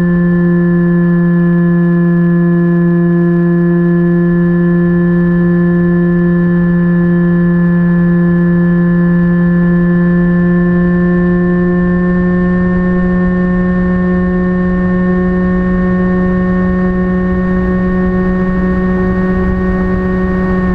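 Phantom FX-61 flying wing's electric pusher motor and propeller running at steady cruise throttle, a constant buzzing hum with low rushing noise beneath; the pitch creeps up slightly about halfway through and drops at the very end as the throttle is eased.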